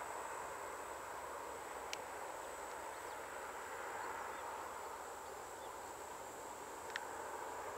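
Steady outdoor background: a low hiss with a constant thin high whine, broken by two faint short ticks about five seconds apart.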